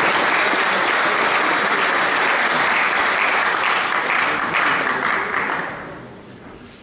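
Spectators applauding at the end of a table tennis rally; the clapping fades out about six seconds in.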